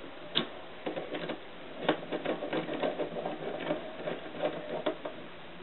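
Screwdriver working the rocker-arm adjusters of a small OHV engine as they are tightened down: irregular light clicks and scraping taps of metal on metal, the sharpest about two seconds in.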